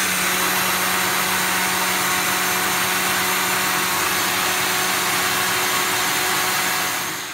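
Nutri Ninja personal blender running at full speed as its cup is held pressed down, blending a green juice: a loud, steady whir over a constant motor hum, which winds down near the end when it is released.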